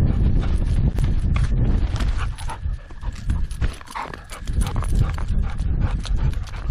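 Dog running with a GoPro mounted on its harness: fast, uneven paw strikes and jostling knocks close to the microphone over a heavy low rumble of wind and movement.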